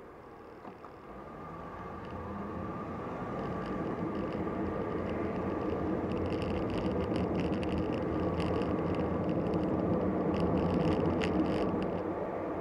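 Car engine and tyre noise heard inside the cabin as the car pulls away from a stop, growing louder over the first few seconds and then running steadily at speed, with clusters of light high-pitched clicks or rattles through the middle.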